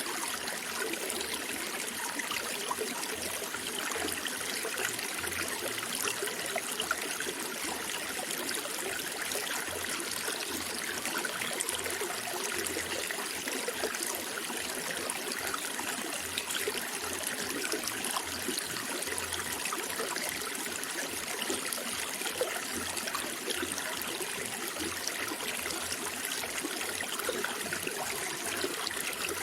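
Running water flowing steadily, an even rushing sound with small fluctuations and no break.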